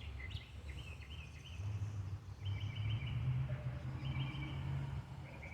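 Wild songbird singing short runs of quick chirps, repeated three times, over a low rumble that swells about a second and a half in and fades near the end.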